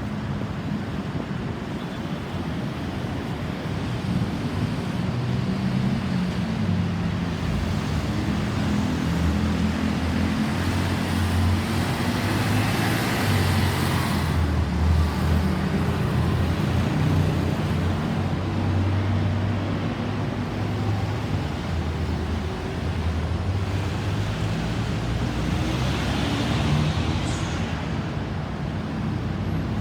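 Road traffic: the low rumble of car and heavier vehicle engines with tyre noise, swelling as vehicles pass near the middle and again near the end. No siren is heard.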